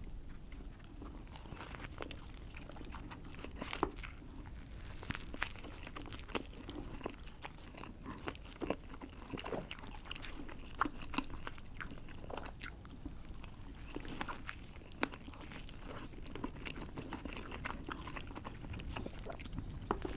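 Close-up crunching as a large pickle is bitten and chewed, with irregular crisp snaps throughout.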